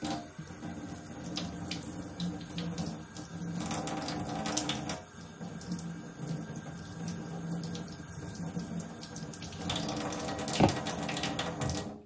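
Kitchen tap running into a stainless steel sink while tomatoes are rinsed under the stream. The splashing changes as they are turned in the water, and a single sharp knock comes near the end.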